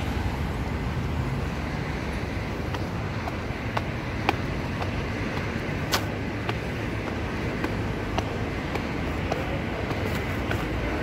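Steady road traffic noise from passing cars, with a scatter of small sharp clicks over it.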